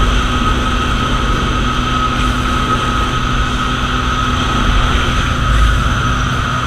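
Steady drone of a small single-engine propeller plane in flight, heard from inside the cabin, with wind rushing in through the open jump door.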